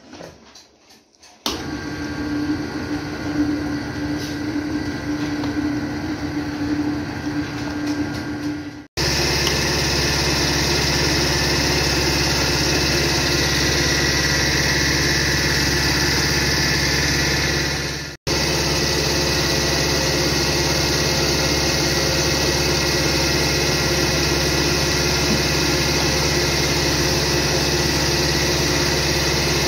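Homemade plastic-moulding machine with a gas-fired heating head running: a steady mechanical drone with hiss. It starts about a second and a half in, becomes louder about nine seconds in, and drops out for an instant near eighteen seconds.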